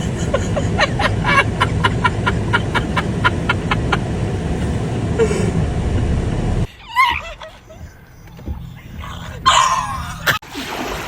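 A loud steady rumbling noise with about four rapid ticks a second, which cuts off suddenly about two-thirds of the way in; then a dog whines and yips twice, a few seconds apart.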